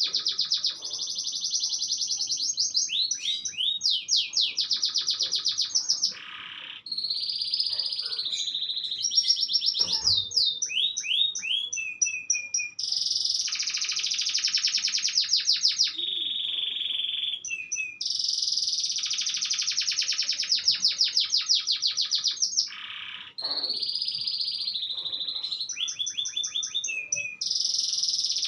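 Domestic canary singing an almost unbroken song of long, fast trills and rapidly repeated notes, with quick up-and-down pitch sweeps between phrases and only a few brief pauses.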